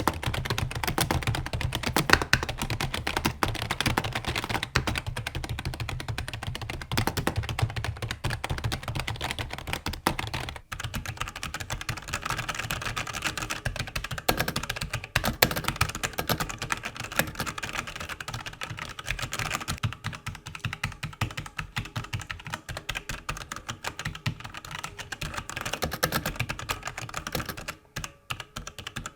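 Fast, continuous typing on computer keyboards. About ten seconds in, the sound changes abruptly to a different keyboard that is less deep and more clicky.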